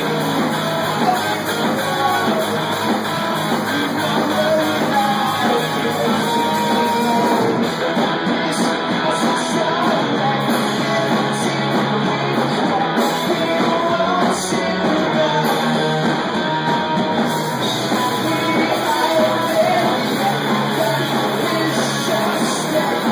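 Live rock band playing: electric guitars, bass guitar and drum kit, with a lead vocal singing over them.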